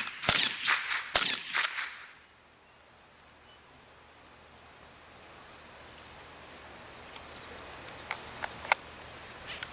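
Several sharp shots in quick succession in the first two seconds. Then crickets chirring steadily, slowly growing louder, with a few faint clicks near the end.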